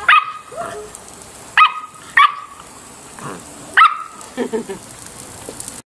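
Samoyed puppy barking: four short, high barks about a second or so apart, followed by a few softer sounds.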